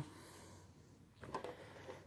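Faint plastic clicks and knocks of a Bakugan Battle Planet ball being rolled across a tabletop, a few short ticks a little past the middle and again near the end.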